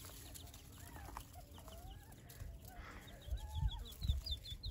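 Quail calling: soft, wavering low clucking notes and, from about three seconds in, a quick run of high, thin peeps, about four or five a second, typical of quail chicks. A few low thumps near the end.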